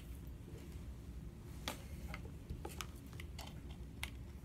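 A few scattered light clicks and taps as small plastic parts of a mini USB Tesla coil kit are handled and fitted together on a marble tabletop, over a faint steady low hum.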